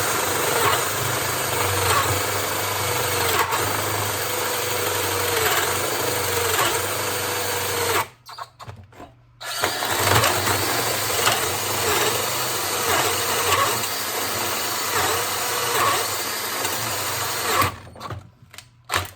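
DeWalt cordless drill boring into wood under heavy load, as a test after repairing a drill whose motor smoked. It runs for about eight seconds, stops briefly, then runs for another eight seconds and stops near the end.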